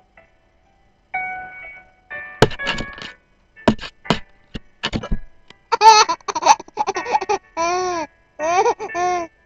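Short, sharp hiccups from the mother through the first half, followed from about six seconds in by a six-month-old baby's chuckles: a string of five or six high, arching laughs.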